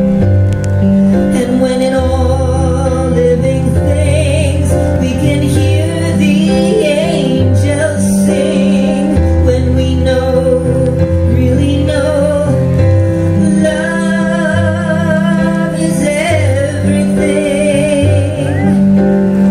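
Woman singing live with a wavering vibrato into a microphone, accompanying herself on a Roland digital stage piano with long held low chords that change every couple of seconds.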